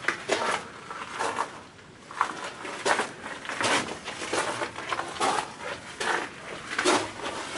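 Footsteps crunching on the loose gravel and rock chips of a mine drift floor at a steady walking pace, about one step every three quarters of a second.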